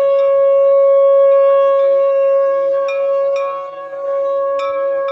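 A conch shell (shankh) blown in one long, steady held note, with a few short sharp strikes behind it.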